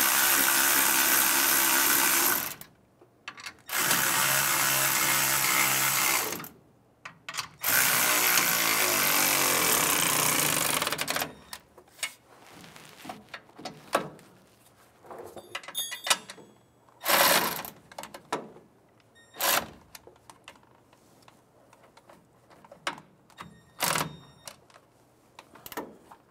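Milwaukee cordless ratchet driving a socket to tighten the nuts on an air-spring bracket. It runs three times, each run two to three seconds long, in the first eleven seconds. After that come only scattered short clicks and knocks as the tool is worked on the nuts.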